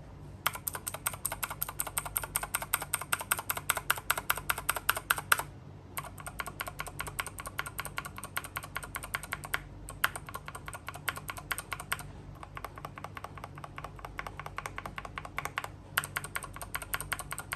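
Fast typing on a mechanical keyboard fitted with Gateron Blue switches: rapid key clicks in runs, broken by a few short pauses.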